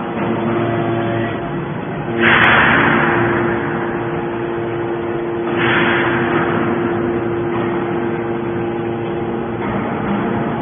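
TCM hydraulic scrap iron baler running: a steady hydraulic pump hum with a fixed tone, and two louder rushing surges about two and five and a half seconds in, each fading off over a second or so.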